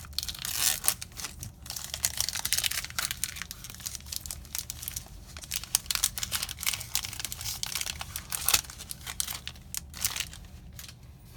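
Magic: The Gathering Aether Revolt booster pack's foil wrapper being torn open and crinkled by hand, a run of irregular crackling rustles that dies down near the end.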